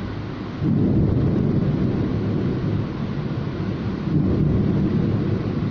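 Thunder during a heavy rainstorm: a low rumble starts suddenly about half a second in, rolls on and swells again about four seconds in, over a steady hiss of rain.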